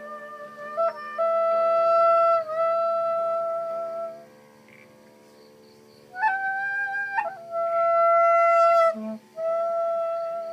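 Flute-like wind tones from a sound installation: long held notes over a steady lower drone. They drop away for a couple of seconds in the middle, then come back with a short higher note and two more held notes.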